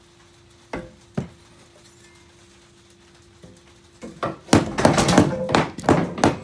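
Metal hand tools being handled and knocking together: two light knocks about a second in, then a busy run of clanking and clattering from about four seconds in.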